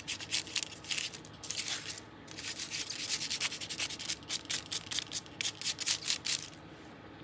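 A hand rubbing quickly back and forth over a sheet of translucent brown paper laid on a journal page, a dry scratchy swishing several strokes a second. There is a brief pause about two seconds in, and the rubbing stops shortly before the end.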